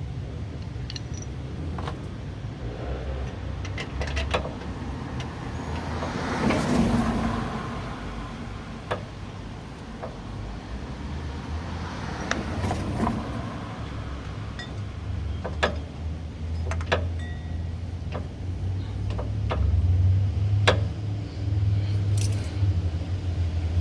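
Metal tools clicking and clinking against metal in scattered sharp strokes over a steady low rumble, with two longer swells of noise.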